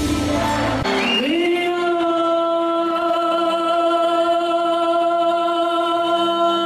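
Female pop singer holding one long sung note into a microphone for about five seconds, scooping up into it about a second in as the band drops out beneath; it cuts off suddenly at the end.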